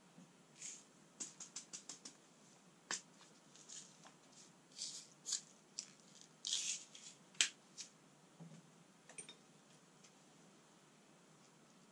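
A scattered series of faint short clicks and brief scratchy scrapes, with a quick run of about six ticks between one and two seconds in and a sharper click about seven and a half seconds in, the loudest.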